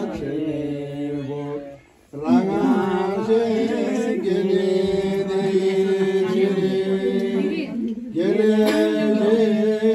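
A voice chanting in long, held sung notes that glide slowly between pitches, breaking off briefly about two seconds in and dipping again near the end.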